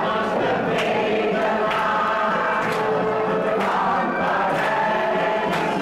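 Pop song with singing voices and a beat about once a second, played back from a recording for performers miming on stage.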